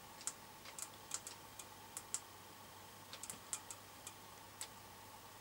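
Front-panel push buttons of a Midland 28 CB radio clicking in a quick, irregular run of faint presses as the set is switched from the UK FM channels to CEPT channel 31 FM.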